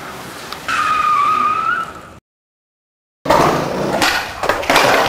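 Skateboard wheels rolling on concrete, then the board clattering down concrete stairs with several sharp knocks. Before that comes a drawn-out high tone for about a second, then a second of dead silence.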